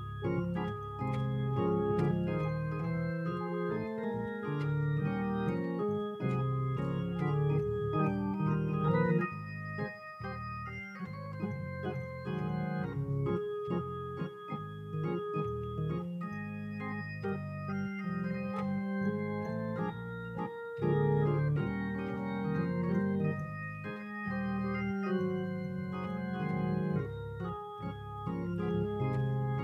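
Organ playing slow, held chords with shorter melody notes moving above them.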